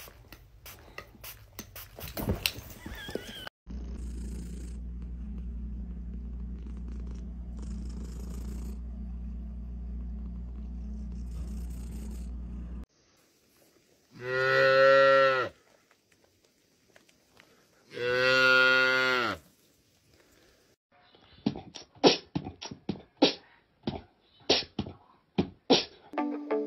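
A cat yowling twice in long, drawn-out calls, each rising and then falling in pitch, while standing in a tub of soapy water. Before the calls there is a steady low hum, and after them a quick run of sharp clicks.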